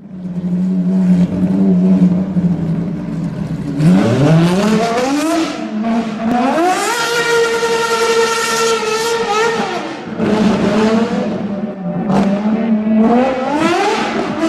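Axial Yeti RC car's electric motor and drivetrain whining. The pitch holds steady, rises as the car speeds up about four seconds in, holds high, drops back around ten seconds, then climbs again near the end.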